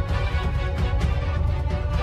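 Background music with a steady beat over heavy bass and held tones.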